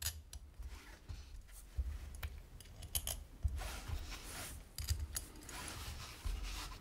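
Hands handling a brass mechanical box mod and its small brass screws: scattered small metallic clicks and scrapes, with low knocks as the box is shifted on the table.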